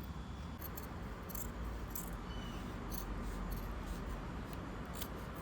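Light, scattered clicks and rustles of hands handling and fitting a fabric shift boot, over a low steady hum.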